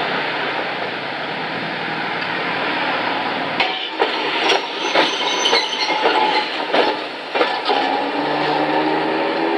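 Steady rushing street noise, then a Toyohashi Railway tram rolling through a sharp street-track curve: its wheels clack and knock over the rail joints and points in an uneven run of sharp hits. Near the end a low drone with several pitches comes in as the car pulls through.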